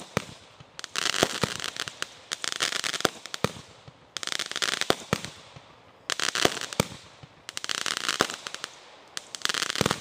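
Aerial fireworks going off: sharp reports and a series of crackling, hissing bursts, one about every two seconds.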